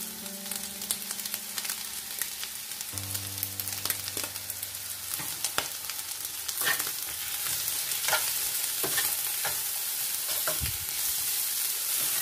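Chicken pieces sizzling in a non-stick frying pan, with a metal slotted spoon scraping and knocking against the pan as sliced onion is stirred through. The stirring strokes come more often in the second half.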